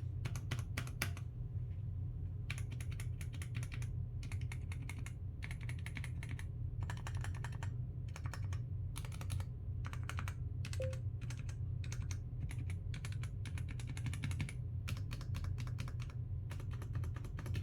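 Typing on a NocFree Lite wireless split mechanical keyboard: rapid key clicks in bursts of a second or two, with short pauses between, over a steady low hum.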